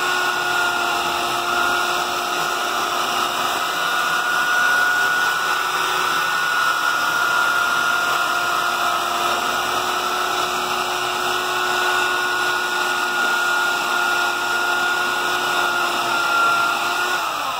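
Handheld electric belt sander running steadily with a constant whine, its belt grinding the trimmed edge of a clear plastic Waiex canopy. Just before the end the motor's pitch falls as it winds down.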